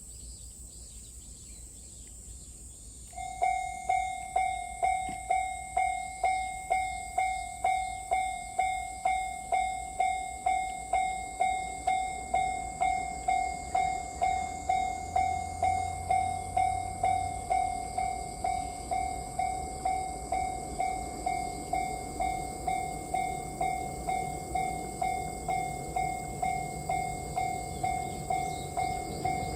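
Japanese level-crossing electronic warning bell starting about three seconds in and ringing its repeating "kan-kan" tone about twice a second. A low rumble grows underneath in the second half as a train approaches.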